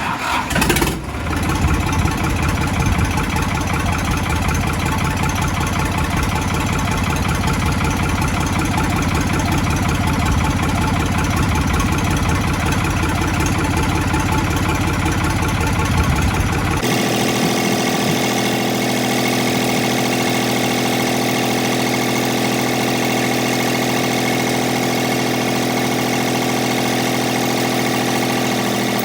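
New Holland 3630 tractor's diesel engine starting and then running steadily, freshly back together after a head gasket replacement. About 17 seconds in the sound changes abruptly: the deep rumble drops out, leaving a steadier, higher hum.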